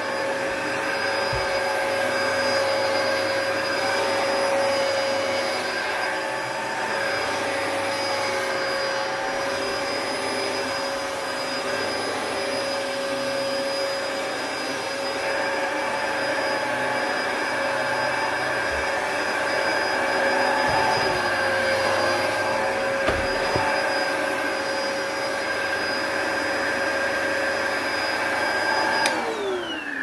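Dyson DC01 dual-cyclone upright vacuum cleaner running with a steady motor whine as it is pushed over carpet. Near the end its pitch falls as the motor winds down.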